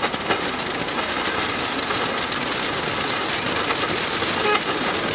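Lesli 'Red Blink' ground firework fountain burning: a steady spraying hiss with many small crackles running through it.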